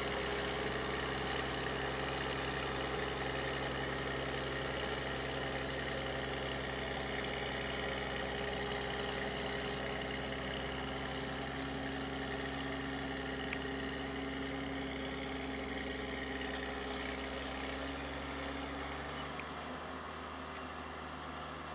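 Dvořák PB400 tractor engine running steadily as the tractor pulls a wide mounted plough through the field. Its low rumble drops away about nineteen seconds in.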